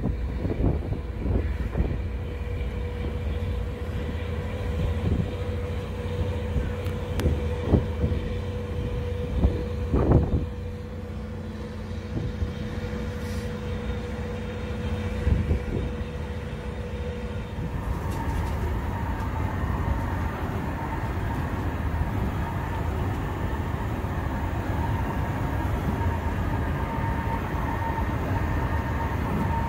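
Passenger ferry's engines running with a steady drone, with wind gusting on the microphone in the first ten seconds or so. About eighteen seconds in, the engine note changes and a steady higher tone comes in.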